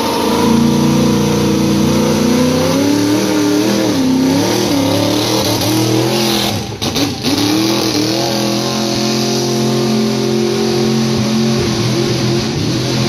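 Pickup truck engine running hard at high revs while pulling a weight-transfer sled down a dirt pulling track. Its pitch wavers up and down several times mid-pass, and the sound dips briefly about two-thirds of the way in.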